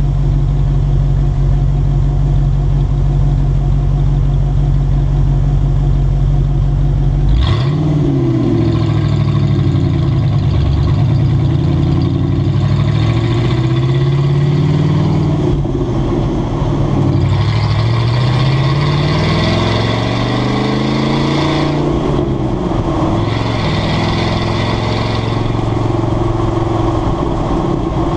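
Exhaust of a 1995 Ford F150's 302 V8, fitted with a remote exhaust cutout. It idles steadily for several seconds, then pulls away about seven seconds in and accelerates through the gears of its five-speed manual, the pitch climbing and dropping back at each shift.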